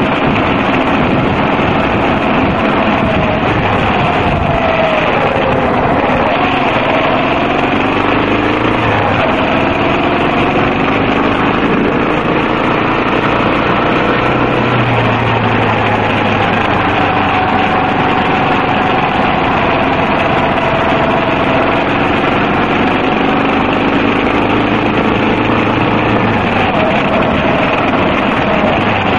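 Yamaha XT250's air-cooled single-cylinder four-stroke engine running under way, its pitch falling and rising with the throttle and gear changes. It runs over a steady rush of wind and road noise on the on-board microphone.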